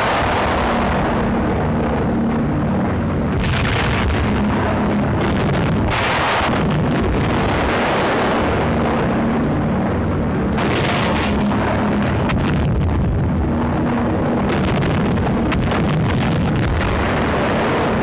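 Wartime newsreel soundtrack of a propeller aircraft's engine running steadily, with a short loud blast every few seconds, four in all, as cannon hits explode.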